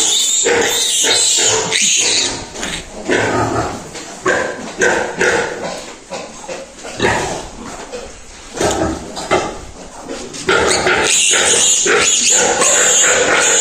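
Pigs vocalising in short calls, turning louder and continuous from about ten seconds in.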